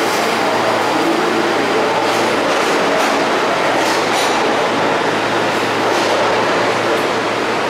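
New York City subway train noise in an underground station: a steady loud rail rumble with a low hum. A few brief clicks sound about a second apart through the middle.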